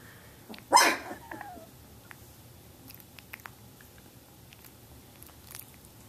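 A young Samoyed puppy gives one short bark about a second in, then a brief falling whimper. Faint small clicks follow.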